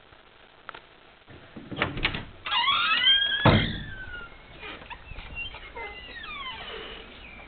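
Dogs scuffling over a crust of bread: a burst of scrabbling noise, then loud, high yelping cries that rise and fall, trailing off into fainter whines.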